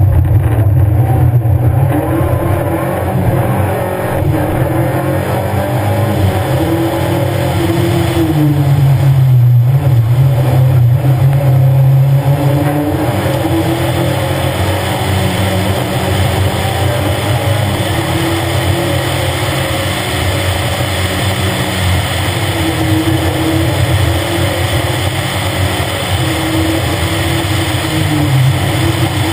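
Škoda 130 LR rally car's rear-mounted four-cylinder engine driven hard, its note rising and falling as the driver accelerates, lifts and changes gear.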